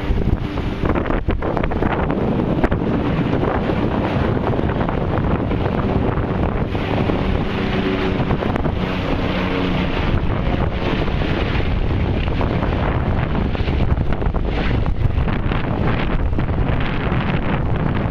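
Strong wind buffeting the camera's microphone: a loud, constant rumbling rush with rapid gusty flutter.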